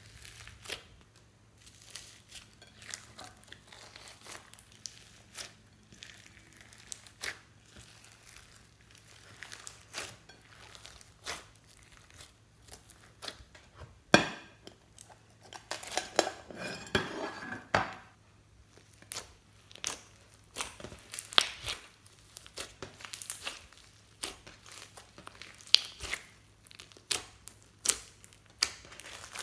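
Glossy slime with foam beads and crunchy flakes mixed in, pressed and kneaded by hand, giving scattered sticky clicks, pops and crackles. About 14 s in comes one sharp knock from the glass bowl being handled, followed by a denser crackling stretch as the slime is worked.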